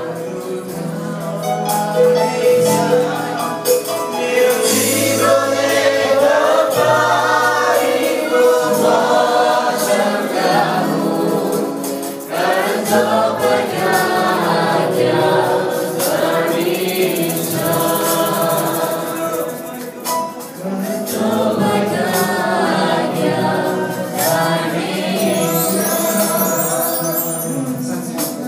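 Church worship singing: a group of voices singing a gospel hymn together with a live band of guitar and keyboard underneath.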